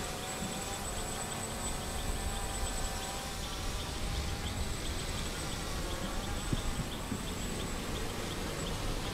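Bayangtoys X28 quadcopter drone's propellers buzzing steadily as it hovers and flies close by, over a low rumble.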